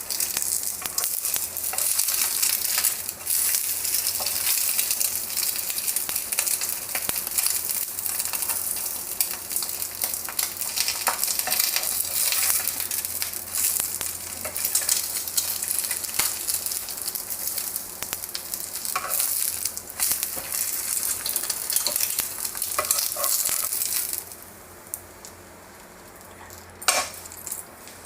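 Food frying in a pan of hot oil, a steady crackling sizzle that stops about four seconds before the end, followed by a single sharp click near the end.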